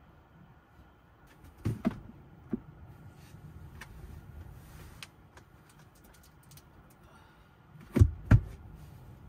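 Knocks, clicks and rustling of a person moving about and handling things inside a car's rear cargo area, ending in two heavy thumps close together about eight seconds in.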